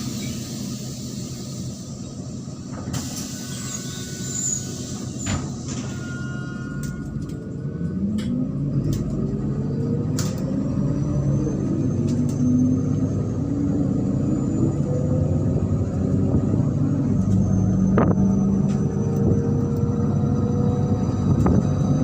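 MAZ-103 city bus heard from inside the cabin: a low rumble with a few clicks and knocks, then the diesel engine pulls away. Its pitch rises, drops at a gear change about halfway in, and rises again as it grows louder.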